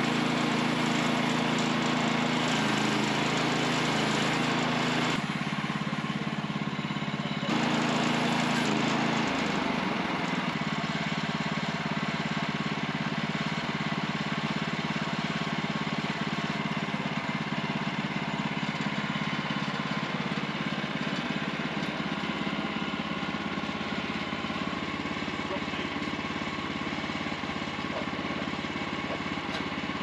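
Woodland Mills HM126 portable bandsaw sawmill running, its small gas engine driving the band blade through a green pine log. The engine note dips about five seconds in and shifts to a lower, noisier running sound about ten seconds in.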